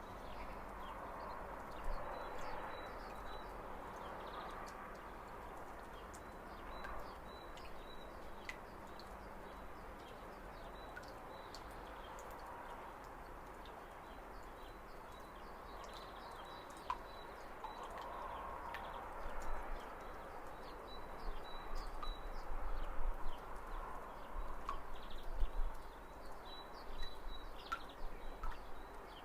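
Spring outdoor ambience: small birds chirping in short, repeated calls over a steady background hiss, with occasional low rumbles in the second half.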